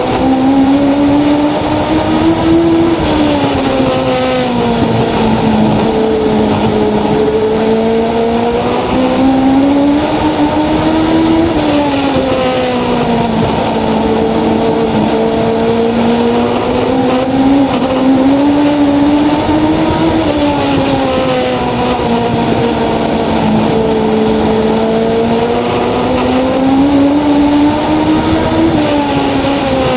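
On-board sound of a Legend race car's Yamaha four-cylinder motorcycle engine at racing speed, its note climbing on each straight and falling as the driver lifts for the turns, about four laps' worth of rising and falling revs.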